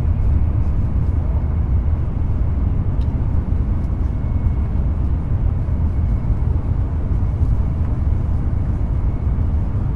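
Interior running noise of a Shinkansen Nozomi train in motion, heard from inside a passenger car: a steady low rumble.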